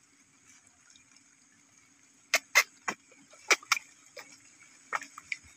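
A quick run of about nine sharp water plops and small splashes at the surface, starting about halfway through, as a common carp takes food at a hand held in shallow water.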